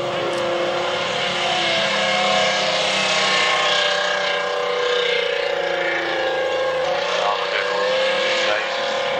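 Tank driving across rough dirt ground: its engine runs with a steady whine that wavers slightly in pitch over a constant noisy rumble from the running gear.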